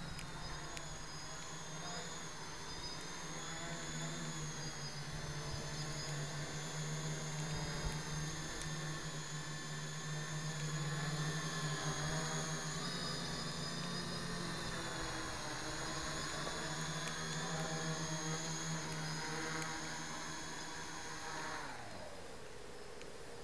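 Quadcopter with MS2216 900kv brushless motors and 10x4 wooden props hovering: a steady buzzing hum with a high motor whine whose pitch wavers as it is flown. Near the end it lands and the motors spin down in a falling whine.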